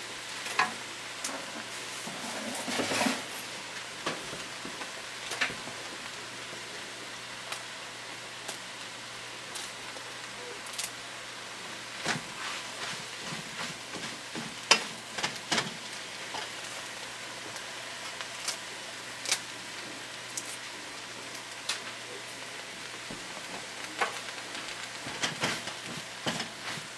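Kale sautéing in a nonstick frying pan, a steady sizzle, as it is stirred and turned with a wooden spoon; scattered sharp taps and scrapes of the spoon against the pan throughout.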